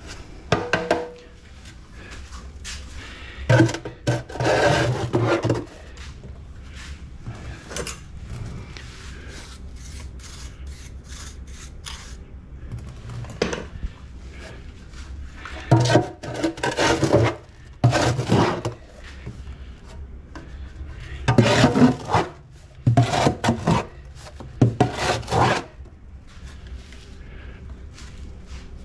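A hand scoop digging and scraping through damp foundry molding sand in a plastic bucket and tipping it out, in about eight separate rough scrapes of one to two seconds each, over a low steady hum.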